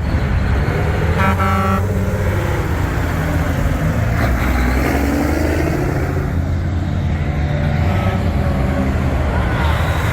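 Heavy diesel truck engine running with a deep rumble, a short horn toot about a second in, then the engine revving as the truck pulls away.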